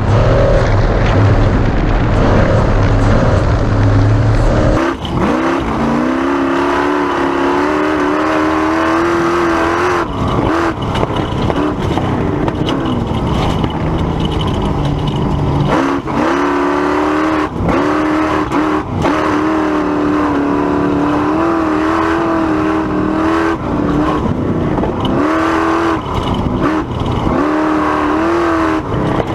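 Class 1450 Ford Ranger race truck's engine revving hard under throttle, its pitch climbing and falling, with brief throttle lifts every few seconds. For the first few seconds a heavy low rumble covers the engine pitch.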